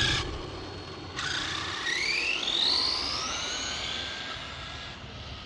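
Arrma Senton 6S RC truck's brushless motor whining as it accelerates on a speed run: the whine starts suddenly about a second in, rises steeply in pitch, then holds high and fades away.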